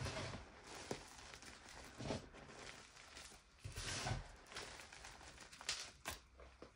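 Fingers raking and scooping through a heap of crumbled gym chalk, making soft crunchy rustles in a handful of bursts, the loudest about four seconds in. Near the end, handfuls of chalk sift back down through the fingers.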